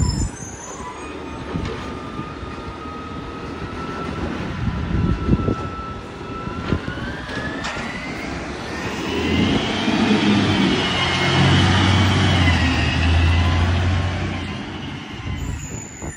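Isuzu garbage truck's diesel engine running with a high whine that climbs in pitch, then revving up loudly about halfway through as the truck pulls away, fading near the end. A few knocks early on.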